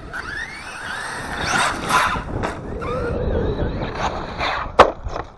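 Brushless electric motor and drivetrain of a 1/8-scale RC monster truck whining as the throttle is blipped, rising and falling in pitch, over wind buffeting the microphone. A sharp knock near the end is the loudest sound.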